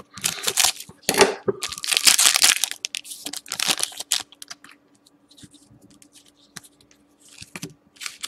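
Scissors cutting open the foil wrapper of a hockey card pack, then the wrapper crinkling as the cards are slid out and handled. The cutting and crinkling are loudest in the first two and a half seconds and fade to soft rustles. A faint steady hum runs underneath.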